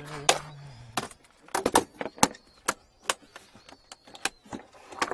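Irregular sharp knocks and clicks, about eight in five seconds, with a short low hum of a voice during the first second.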